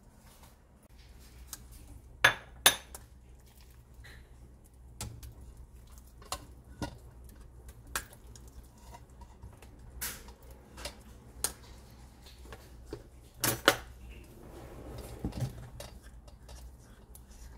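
Kitchenware clinking and knocking as a ceramic plate is lifted off a stainless steel mesh strainer and a metal spoon works in the strained yogurt. There are two sharp clinks about two seconds in, scattered lighter taps after them, and a quick double knock near the end.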